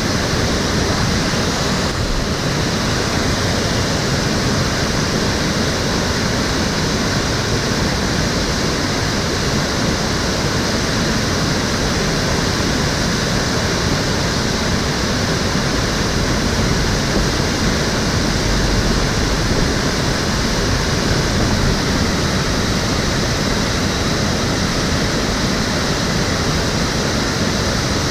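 Stream water flowing and splashing steadily, a constant even rush.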